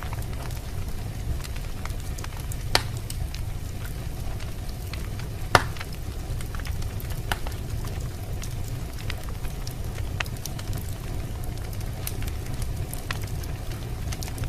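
Wood fire in a fireplace crackling, with a steady low rumble of burning and a constant scatter of small snaps. Two sharper pops stand out, about three seconds in and, louder, a little past five seconds.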